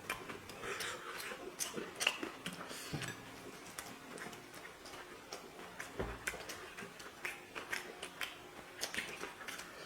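Eating sounds from chicken biryani being eaten: irregular soft clicks and smacks of chewing and of food being handled, a few every second.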